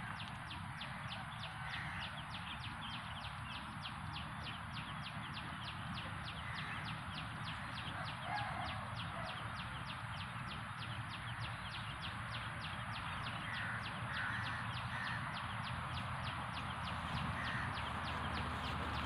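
A high, even chirping repeating about four times a second, with a few short animal calls now and then and a low rumble underneath.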